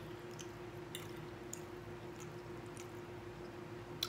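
A person chewing food with soft, wet mouth sounds, with a few light clicks and one sharper click near the end, over a steady low hum.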